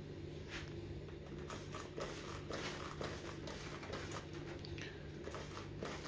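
Hand trigger spray bottle squirting water at a bird in its wire cage: a quick run of short hissing sprays, about two a second, over a faint steady hum.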